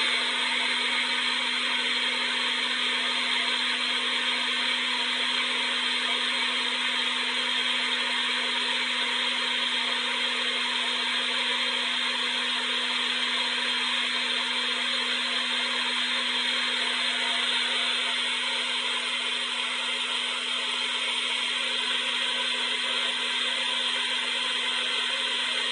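Hair dryer running steadily: a constant rush of blown air over a low, even motor hum.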